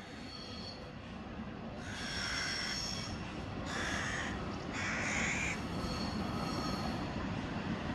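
MÁV Bzmot diesel railcar approaching, its rumble growing louder. Over it come three short, harsh screeches about a second apart, starting about two seconds in.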